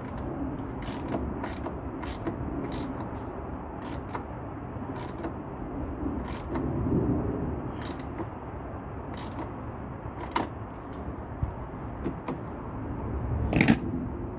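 Ratchet wrench with a 12 mm socket working a bolt: scattered metallic clicks every half second to second, with a louder clink near the end, over a steady low hum.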